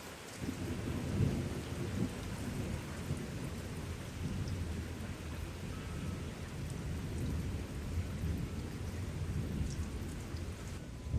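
Thunderstorm: rain falling with a long, low rumble of thunder that starts about half a second in and swells and fades unevenly.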